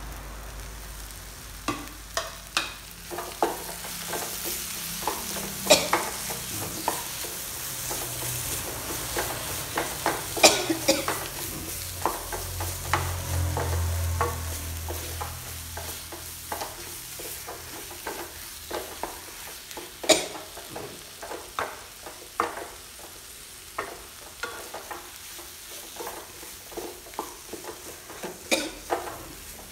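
A utensil stirring and scraping in a pan of frying masala with tomato added, with irregular sharp clicks as it strikes the pan over a steady sizzle.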